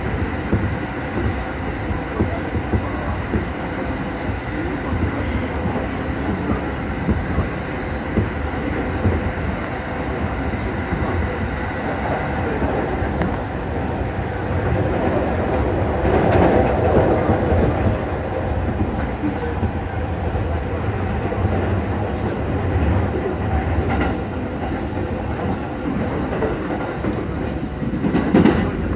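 Electric commuter train running along elevated track, heard from inside the passenger car: a steady rumble of wheels on rails that grows louder for a couple of seconds about halfway through and again near the end.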